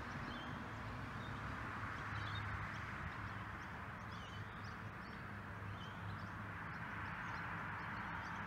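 Outdoor ambience: small birds chirping faintly and irregularly over a steady low hum and hiss.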